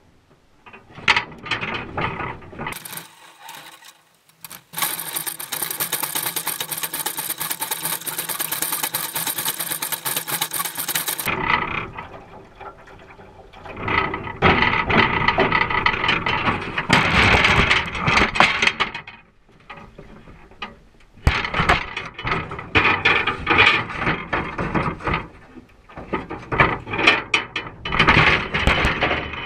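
Rowboat oars working in their oarlocks, clacking and creaking in irregular bursts, with the wire crab pot rattling against the boat floor. A steady rushing noise runs for about six seconds. Near the end the coiled line and the pot are handled.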